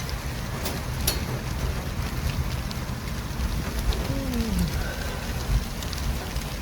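City traffic ambience: a steady low rumble and hiss of road traffic, with scattered small ticks and a brief falling tone about four seconds in.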